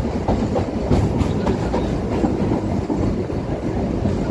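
EMU local train running, heard from on board: a steady low rumble with the wheels clattering irregularly over the rails.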